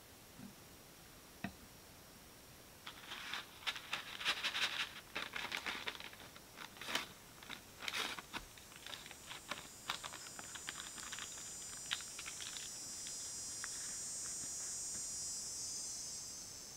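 Packaging crinkling and rustling in the hands, with sharp clicks and crackles, for several seconds; a faint high-pitched hiss then rises and fades away near the end.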